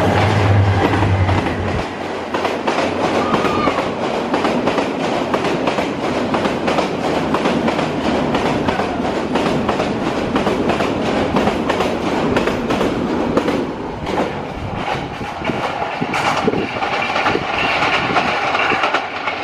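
A diesel-hauled express passenger train passes close at speed. The locomotive's engine hum drops away about two seconds in as it goes by, and then the coaches rumble past with a fast, continuous clickety-clack of wheels over rail joints, easing a little near the end as the train draws away.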